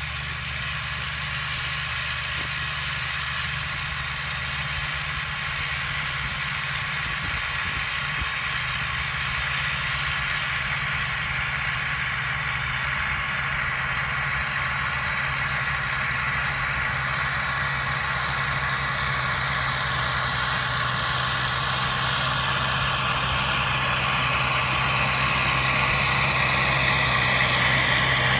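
Tractor diesel engine running steadily while pulling a plough, growing louder as the tractor approaches.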